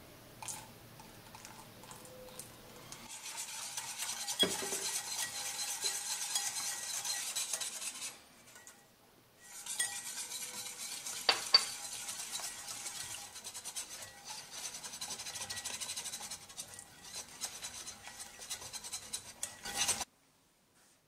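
Wire whisk beating pancake batter in a bowl: fast, steady scraping and clicking of the wires against the bowl, with a few sharper clinks. It pauses briefly near the middle and stops suddenly near the end.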